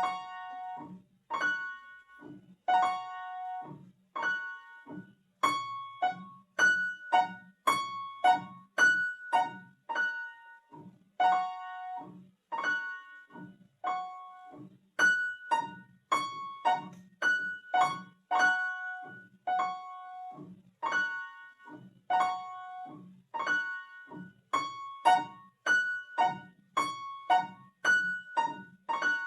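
Piano playing a simple beginner duet accompaniment at a steady, even pace: repeated high notes over lower bass notes, each note struck and left to ring.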